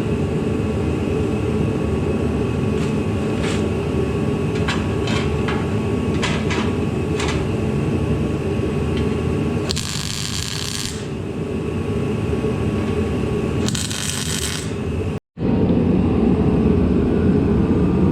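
Steady drone of a workshop heater, with scattered light metal clicks and taps. Two short bursts of crackling hiss, about ten and fourteen seconds in, fit MIG welding on a steel frame. The sound cuts out for a moment near the end.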